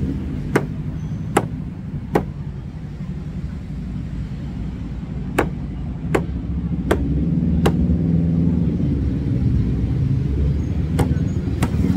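A large knife chopping into a green coconut: about nine sharp strikes in three bursts. Under them runs the steady low rumble of road traffic engines, swelling in the middle.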